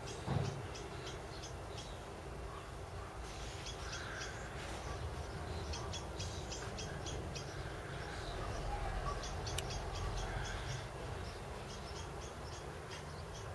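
Small birds chirping in quick runs of short, high repeated notes, over a steady low rumble, with one brief thump just after the start.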